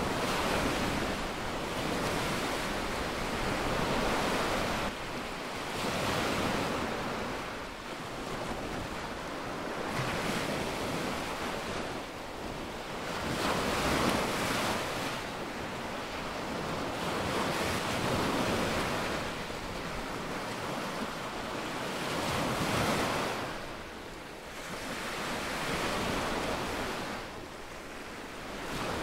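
Small waves breaking and washing up a sandy beach: a hiss of surf that swells and eases again every three to four seconds.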